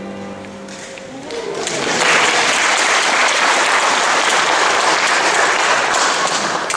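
The last held chord of choir and strings dies away, then audience applause swells in about a second in and holds steady, starting to fade near the end.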